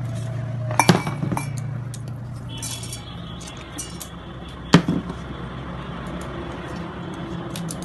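Chopped spices and mustard seeds dropped into a stainless-steel mixer-grinder jar. There are sharp metal clinks about a second in and again near five seconds in, with a scatter of small ticks, over a steady low hum.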